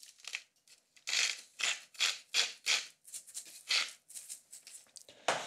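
Salt being dispensed into the mayonnaise bowl in a quick series of short, gritty rattling bursts, about two a second.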